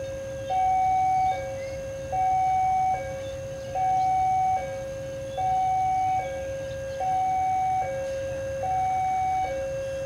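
Electronic two-tone railway level-crossing warning alarm, alternating steadily between a high and a low tone about every 0.8 seconds as a train approaches.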